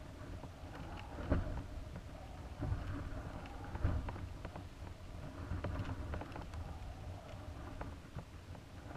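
Onboard camera of a high-altitude balloon payload: a steady low rumble of air buffeting the housing. Scattered light knocks and clicks come from the payload as it swings and turns, the loudest about a second in and near four seconds in.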